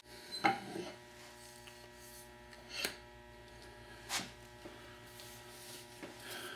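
Low steady electrical hum, with three light knocks as the vise's parts are handled.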